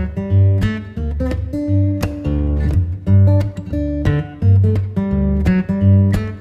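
Background music led by acoustic guitar, plucked and strummed notes over a steady, repeating bass line.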